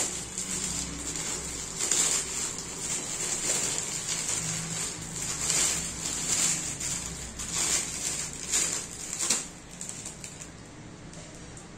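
Clear plastic bag crinkling and rustling in irregular bursts as a toy is worked out of it, dying down about nine or ten seconds in.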